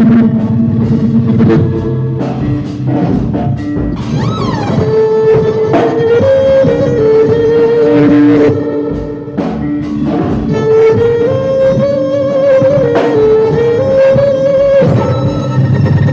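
Band music: drums and guitar under a held, sliding melody line.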